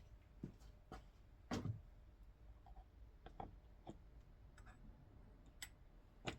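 Faint, irregular clicks and light knocks from hands working on an opened chop saw's handle housing and parts, the loudest about one and a half seconds in.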